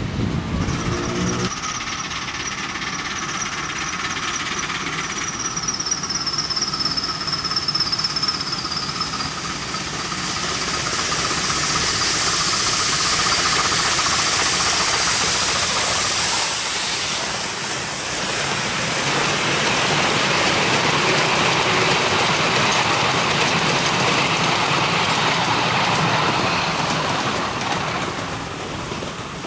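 Miniature steam locomotive hauling a passenger train past on narrow-gauge track. The train's running builds from about a third of the way in, stays loud for most of the rest, and eases off near the end.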